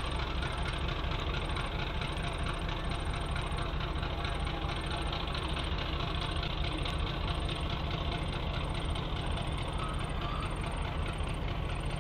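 Diesel locomotive engine running steadily, a constant deep rumble with mechanical noise over it.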